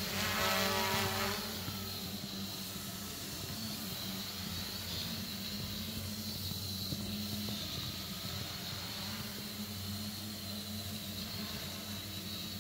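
Small homemade quadcopter drone in flight, its motors and propellers giving a steady high whine that wavers slightly in pitch. The sound is louder and richer for the first second or so.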